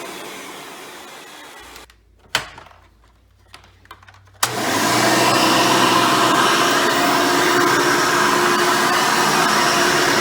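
Hoover Elite upright vacuum, with its original 7-amp motor and 7-blade fan, winding down after being switched off. After a sharp click and a few light knocks it is switched back on about four and a half seconds in, starting abruptly and running steadily.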